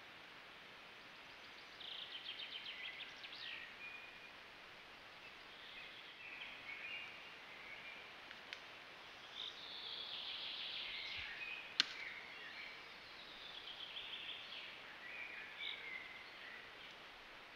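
Songbirds singing: repeated trilled song phrases, each a second or two long, over a faint steady hiss. A single sharp click about twelve seconds in is the loudest sound.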